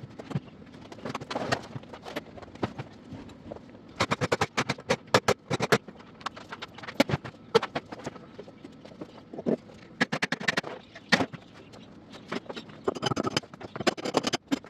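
Irregular runs of sharp clicks and clattering knocks, as of hard objects striking one another, densest in a few bursts of rapid strokes.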